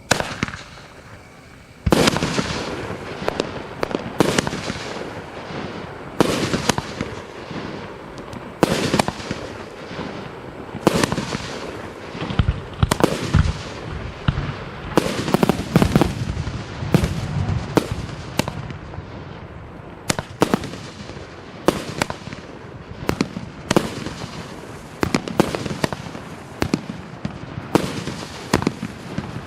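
A 25-shot, 500-gram consumer fireworks cake firing: after a short pause at the start, sharp shots and bursts go off every one to two seconds, some in quick pairs and clusters.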